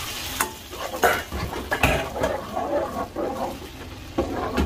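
Seasoning sauce poured into a hot frying pan of garlic and leek, bubbling and spattering irregularly, with a few sharp clicks of a utensil against the pan.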